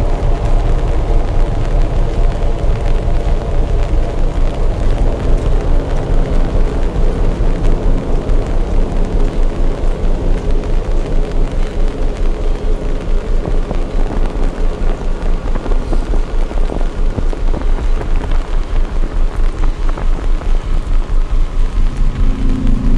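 Heavy rain falling steadily, with a strong low rumble and a regular rise and fall in level about three times a second. A faint drone of ambient music sits underneath.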